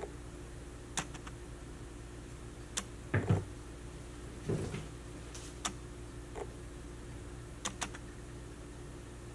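A round painted canvas set down on a tabletop with a dull thump about three seconds in, and another soft thump a second and a half later, among a few light clicks and taps from handling, over a steady low hum.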